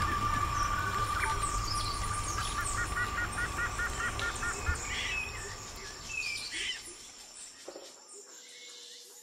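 Birds chirping and calling, with a fast run of about ten short repeated notes some three seconds in, over a steady high insect-like whine. The whole ambience fades out toward the end.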